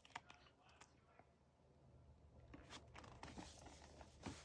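Near silence: room tone with a few faint clicks, then soft, faint rustling and ticks in the second half.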